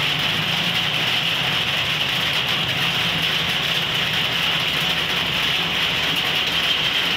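Steady rain falling on a roof overhead and on the wet road, with a low hum of vehicle engines underneath.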